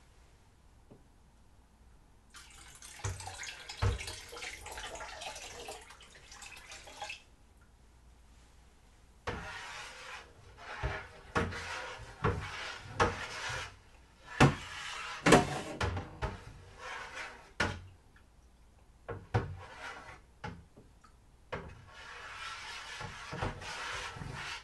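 Dextrose priming solution being poured and stirred into a plastic bucket of beer. Several stretches of swishing, splashing liquid are separated by short pauses, with scattered knocks against the bucket in the middle.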